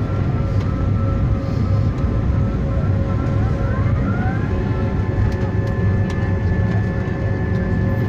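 Jet airliner rolling out on the runway just after landing, heard inside the cabin over the wing: a steady low rumble with several whining engine tones above it. One of the whines rises in pitch about four seconds in, then holds steady.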